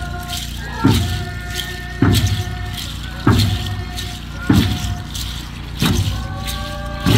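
Group singing of a held chant over a slow, steady drum beat of about one stroke every 1.2 seconds, six beats in all.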